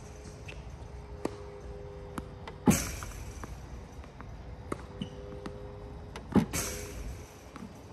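Tennis Tutor ProLite battery ball machine firing tennis balls twice, each shot a sudden loud launch. Between shots its motor hums steadily. Faint ball bounces and racket hits come from across the court.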